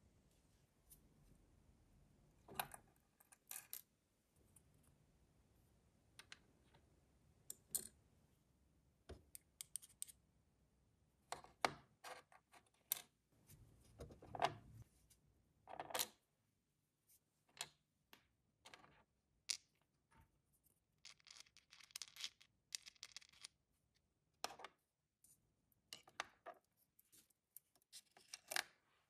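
Small plastic miniature kitchen pieces clicking and tapping as they are set down and handled one at a time, with a couple of seconds of denser scratching about three-quarters of the way through.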